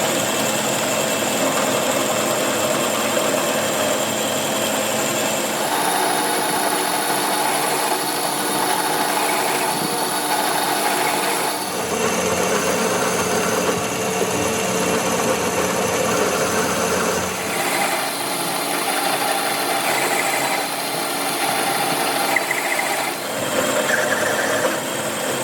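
Workshop power tools running steadily, the machine sound changing abruptly every five or six seconds as one short clip of the work cuts to the next.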